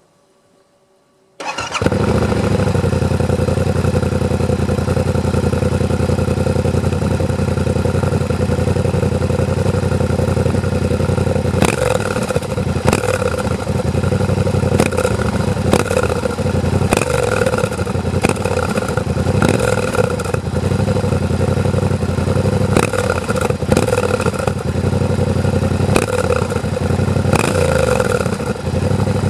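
Yamaha Ténéré 700's 689 cc parallel-twin engine on its stock exhaust, starting suddenly about a second and a half in and then idling steadily.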